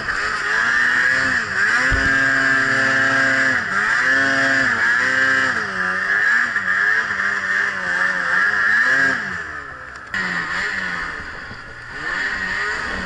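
Ski-Doo Summit 800 E-TEC snowmobile's two-stroke twin engine revving up and down repeatedly under load in deep snow, with a high steady whine over it. The engine falls quieter about ten seconds in before picking up again near the end.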